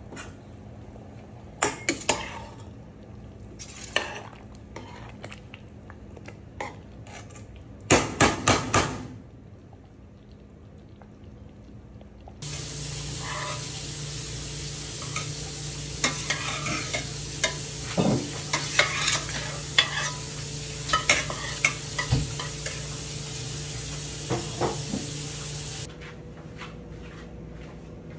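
A metal spoon stirring thick tomato sauce in a stainless steel pot, scraping and clinking against the pot, over a steady sizzling hiss of the sauce cooking on the stove. The hiss starts abruptly about twelve seconds in and stops abruptly near the end; before it there are only a few scattered metal clinks on the pot.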